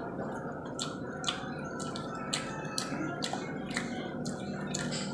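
Close-miked chewing of honey chicken and lettuce: wet, sharp mouth clicks about twice a second over steady low background noise.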